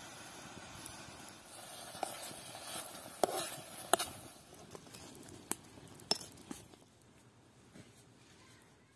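Metal spoon stirring thick fig jam in a steel pan, clinking sharply against the pan about six times over a soft hiss. It goes quieter near the end.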